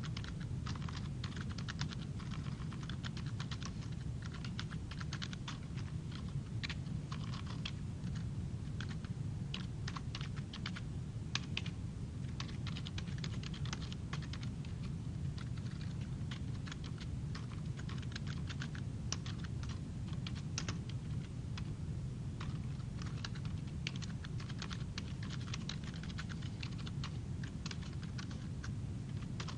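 Typing on a computer keyboard: a quick, uneven run of key clicks, over a steady low hum.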